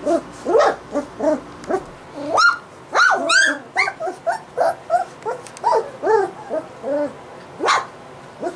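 Three-week-old golden retriever puppies yipping, whimpering and giving small barks in quick succession, one after another. Several of the calls slide sharply up in pitch, and a last loud yelp comes near the end.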